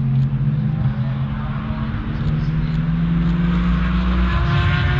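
An engine running steadily at low revs, its pitch stepping up about two seconds in and dropping away after about four seconds.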